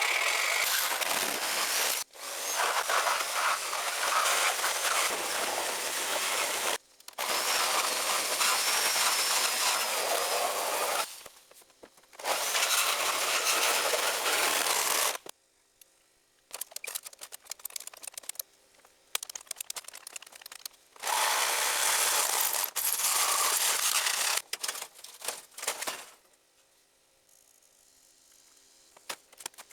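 A power tool cutting into the car's sheet metal, run in long bursts of two to four seconds with sharp stops between, then switched on and off in quick short bursts near the end.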